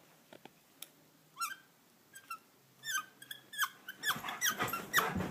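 A rubber squeaky dog toy squeaked in short separate squeaks, a few at first and coming closer together near the end.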